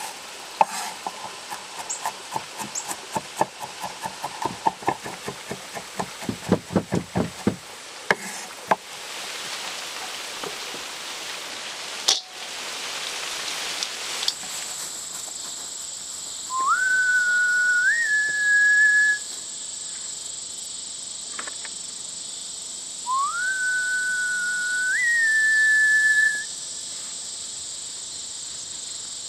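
A run of sharp clicks and taps, then a steady hiss, over which come two long whistled notes a few seconds apart; each slides up, holds, then steps up a little higher and holds again.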